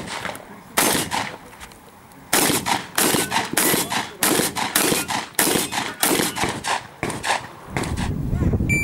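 Shotgun fired in a fast string at about three shots a second, after a single shot and a pause of about a second and a half. A steady low rumble near the end.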